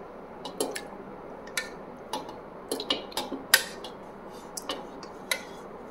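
A spoon clinking and scraping against stainless steel as curd is scooped from a steel bowl into a steel mixer-grinder jar: a dozen or so short, irregular clinks.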